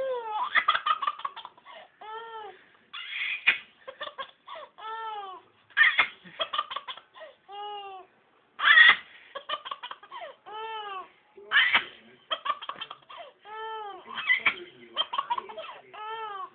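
A baby laughing in repeated bursts, high-pitched squeals and giggles with rising-and-falling pitch, one after another with short pauses between.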